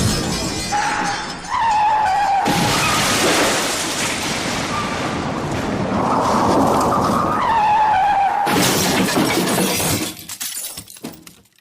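Car crash sound effect: tyres screech, then a crash with breaking glass, twice. The second crash ends in scattered tinkling of falling debris that fades out.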